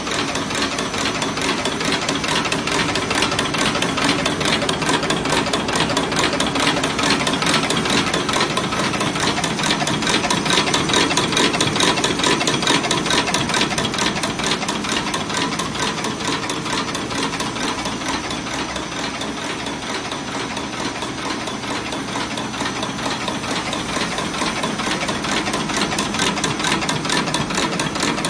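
JL-Z200 automatic non-woven folding and cutting machine running, its folding and cutting mechanism clattering in a fast, even rhythm as it folds the web into stacked sheets.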